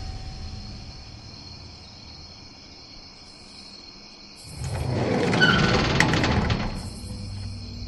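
A door being unbolted and pulled open about four and a half seconds in: a metal bolt scrapes and clicks, with a short squeak, for about two seconds.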